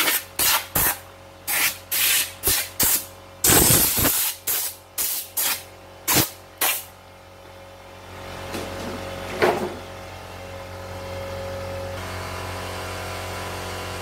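Short, sharp hissing blasts from a spray gun blowing dirt off an embroidery machine's plastic housing, about a dozen in the first seven seconds with one longer blast near the middle. After that a steady hum with a held tone takes over.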